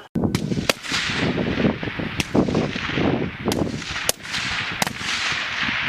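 Rifle shots on a firing range: several sharp cracks at uneven intervals over a steady loud rushing noise.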